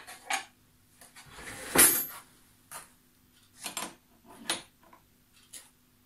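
Metal hand tools clinking and clattering in about half a dozen separate knocks, the loudest about two seconds in, as a 17 mm spanner is fetched from among other tools and then put to the gas hose fitting of a TIG welder.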